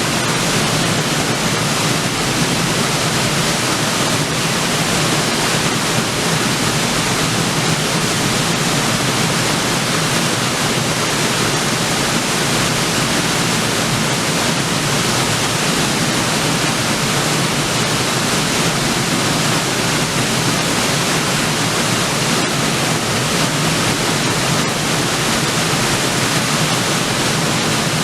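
River waterfall: water falling and splashing onto rock in a steady, unbroken rush.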